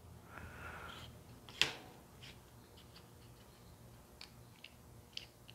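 Faint, scattered clicks and taps of small metal parts being handled as a nut is unscrewed from a bracket plate, with one sharper click about a second and a half in.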